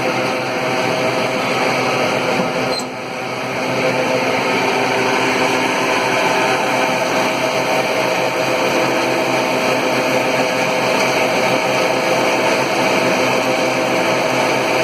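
Metal box dryer's electric fan blower running steadily, a broad rushing noise with a fixed hum of steady tones. The level dips briefly about three seconds in, then holds steady.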